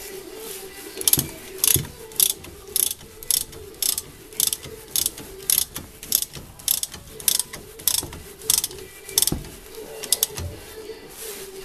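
Ratchet wrench clicking in a steady run of short strokes, about two a second, stopping about nine seconds in.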